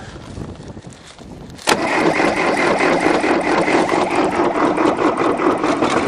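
1974 Case backhoe's diesel engine, which has no glow plugs, catching on ether in a cold start: it fires suddenly a little under two seconds in and keeps running loud and steady.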